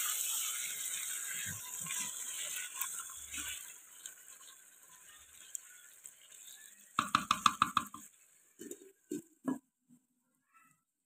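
Marinated chicken sizzling as it fries in a clay handi, fading after a few seconds. About seven seconds in comes a quick rattling clatter of about eight strokes against the pot, the loudest part, followed by a few separate knocks as a glass lid is set on.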